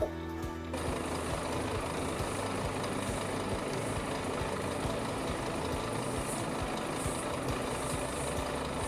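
Truck's diesel engine idling steadily, with faint regular swishes of a brush sweeping the flatbed deck, about one every half second or so, in the second half.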